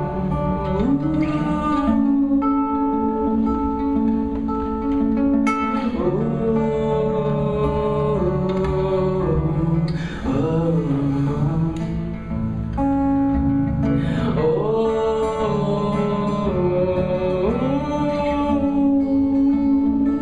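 Live song: a man singing long, sliding vocal phrases over a strummed acoustic guitar.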